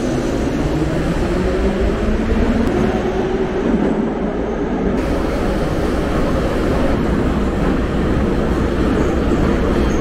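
Metro train running with a loud steady rumble and a motor whine that rises in pitch about two to four seconds in. For the second half it is heard from inside the carriage.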